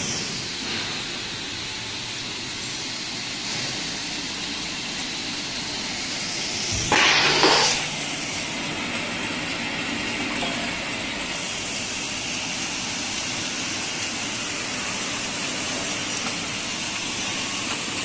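Industrial stainless-steel bubble-type fruit washing machine running: a steady hiss of rushing water from its spray system and tank. A louder burst of rushing water comes about seven seconds in.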